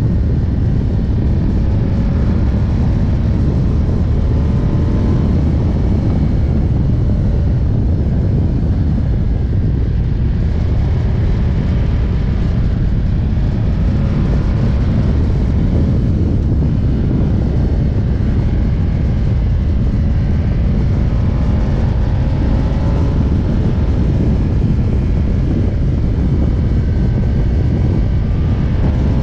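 Ducati Diavel's V-twin engine running steadily at cruising speed, its pitch drifting slightly up and down, under heavy wind rumble on the handlebar-mounted camera.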